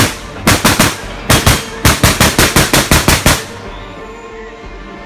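AK-pattern rifle fired rapidly in quick strings of shots, the longest string near the middle, stopping about three and a half seconds in.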